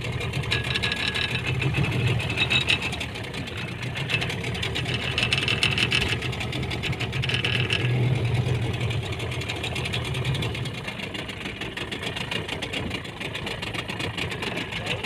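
Fishing boat's engine idling with a steady low hum.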